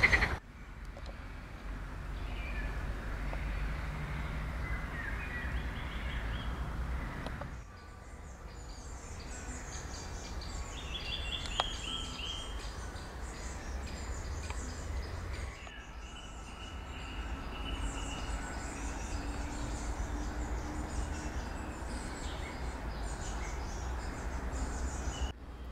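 Woodland ambience: small birds chirping and singing over a steady low rumble. The background shifts abruptly a couple of times where shots are cut together.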